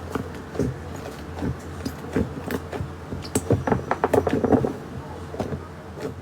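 Slime being squeezed and poked by hand, making irregular sticky clicks and pops that come thickest about four seconds in, over a steady low hum.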